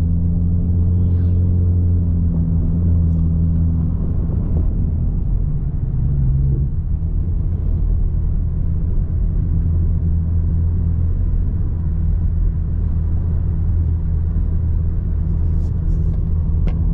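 Car driving on a road, heard from inside the cabin: a steady low rumble of engine and road noise.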